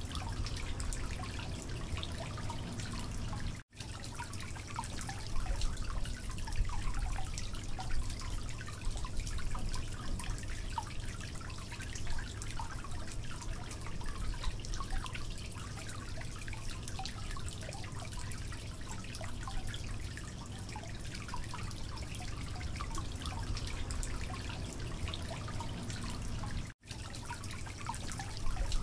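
Steady dripping, crackling water-like noise over a low rumble, cutting out briefly twice.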